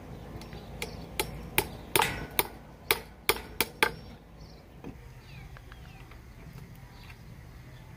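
A claw hammer strikes a nail into a wooden batten in about nine quick blows, starting about a second in. One blow near the middle rings on briefly.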